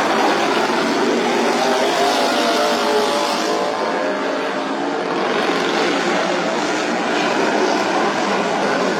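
Engines of modified racing lawn mowers running hard as several race together, their overlapping notes wavering in pitch. The sound eases slightly about halfway through and builds again.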